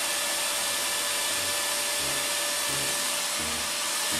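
The repaired cooling fan of an inverter welding machine, a substitute brushless DC fan wired through a 12 V zener diode, running steadily. It gives an even airflow whoosh with a faint steady tone.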